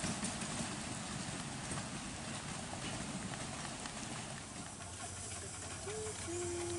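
Miniature steam train, a small locomotive with its passenger carriages, running along the track: a steady clatter of wheels and exhaust beats that slowly fades as it draws away.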